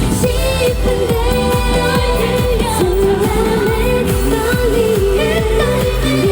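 K-pop girl-group song: female voices singing a melody over a steady electronic pop beat with deep bass.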